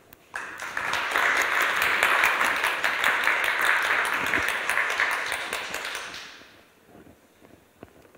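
Audience applauding: it starts about half a second in, holds steady, and fades out after about six seconds.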